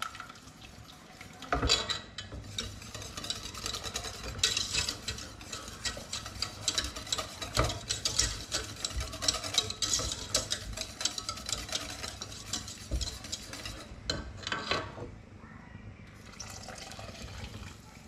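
A roux and cold fish stock being stirred briskly in a stainless steel saucepan: quick, repeated scraping and tapping of the utensil against the pan as the stock is worked into a sauce. The stirring eases off and goes softer about fourteen seconds in.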